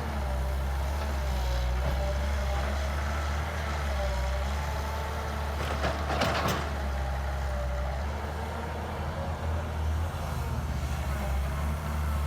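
Excavator's diesel engine running steadily, with a wavering hydraulic whine as the arm moves and a short clatter about six seconds in.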